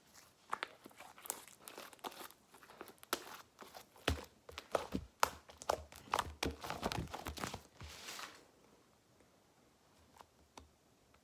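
Butter slime (slime kneaded with soft clay) being squeezed and stretched by hand, giving a dense run of sticky crackling clicks and pops that stops about eight seconds in.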